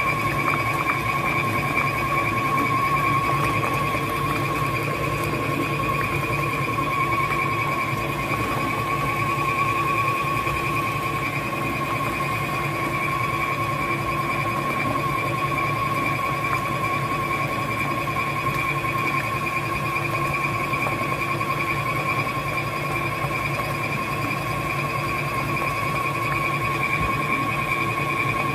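KitchenAid stand mixer running steadily with a constant whine, its beater churning cream cheese and sugar in a steel bowl.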